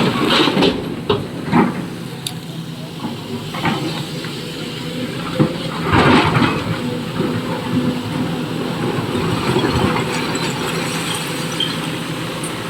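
Excavator's diesel engine running steadily under load while loading trucks, with intermittent knocks and clatter and a louder burst of noise about six seconds in.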